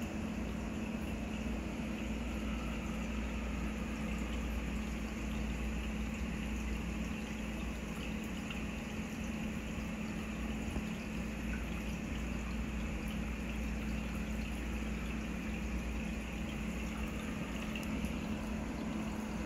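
Reef aquarium's pumps and circulating water: a steady hum with a continuous wash of bubbling, moving water.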